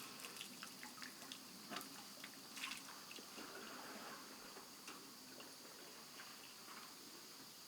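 Faint water sounds: scattered small splashes and drips.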